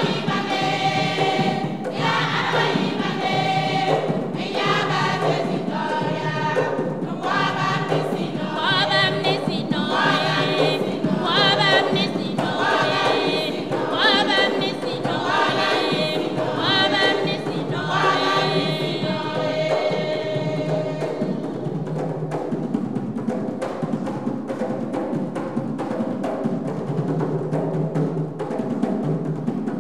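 Women's choir singing a gospel song over box-drum (cajón) percussion. The singing drops away about two-thirds of the way through, leaving the drumming to carry on.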